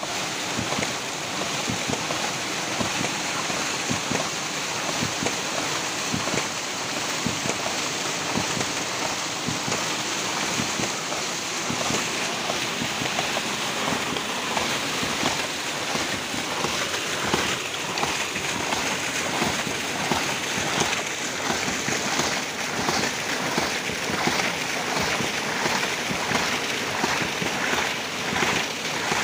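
Water gushing and splashing out of the waste valve of a homemade PVC hydraulic ram pump, with a regular pulsing as the valve cycles, plainer in the latter half.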